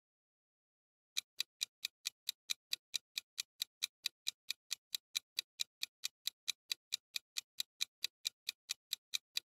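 Countdown-timer ticking sound effect: an even run of short ticks, about four to five a second, starting about a second in.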